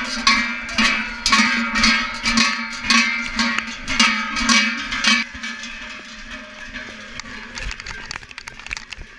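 Large metal cowbells (zumbas/cencerros) clanking in an uneven swinging rhythm, each clank leaving a ringing tone. The clanking drops away about five seconds in, leaving fainter scattered knocks.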